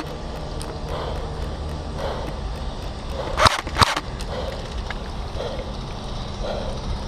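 Two sharp cracks about half a second apart, a little over three seconds in, over a steady low rumble: shots from an airsoft gun.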